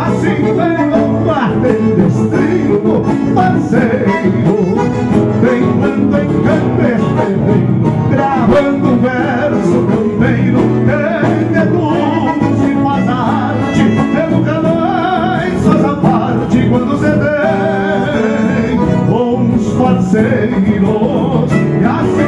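Live gaúcho folk music: several acoustic guitars strummed and picked together in a steady ensemble.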